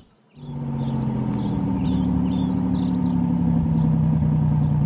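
Cartoon bus engine sound effect: a steady hum that starts about a third of a second in as the bus pulls away from its stop.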